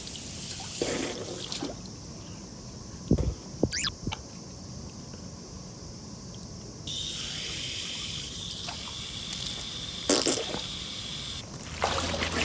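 Water from a garden hose running and trickling into an inflatable paddling pool, with louder splashes about ten seconds in and again near the end as water is scooped onto a face by hand.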